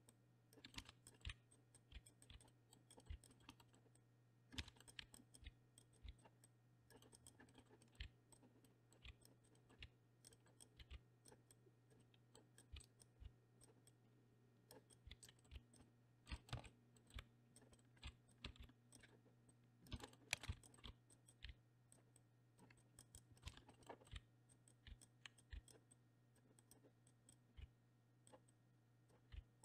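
Faint, scattered computer keyboard key presses and mouse clicks, each one separate with gaps between them, over a faint steady low hum.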